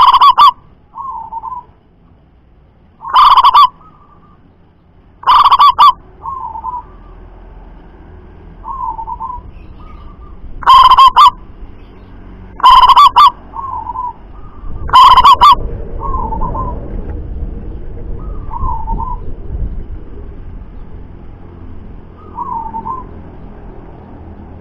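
Zebra dove (perkutut) cooing: six very loud calls of about half a second each at irregular intervals, with softer short notes in between. A low background rumble comes up after about fifteen seconds.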